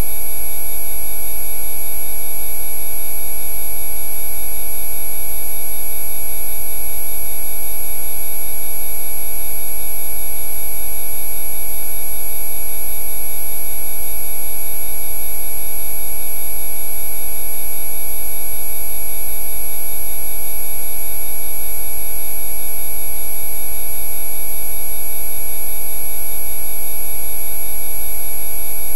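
Synthesized Rife frequency track: a loud, unchanging blend of many steady electronic tones at fixed pitches over a deep low hum.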